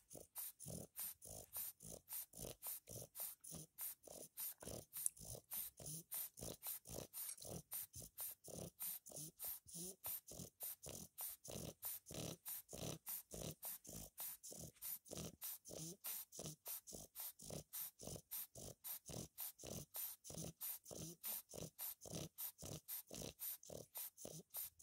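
A sleeping French bulldog puppy breathing fast and noisily through its flat nose, a steady rhythm of about three short breath sounds a second.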